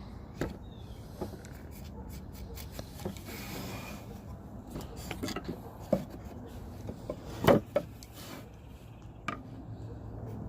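Hand chisel paring scrap wood: scattered scraping and small clicks, with a short scrape about three seconds in and a sharper knock about seven and a half seconds in.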